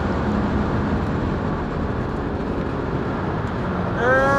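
Steady road and engine noise of a moving car. A voice starts near the end.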